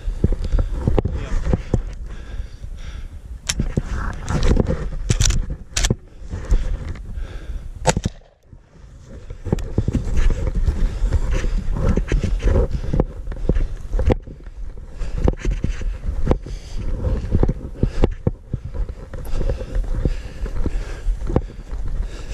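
Footsteps on rough, steep ground with gear rustling and rattling against a chest-mounted camera, and scattered sharp clicks and knocks throughout. The noise drops away briefly about eight seconds in.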